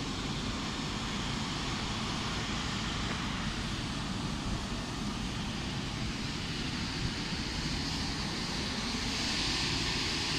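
Steady rumble and hiss of wind buffeting the microphone outdoors, growing a little louder and brighter near the end.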